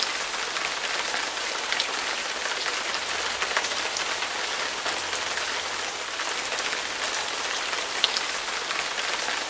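Steady rain falling on a surface: an even hiss with scattered sharp drop ticks.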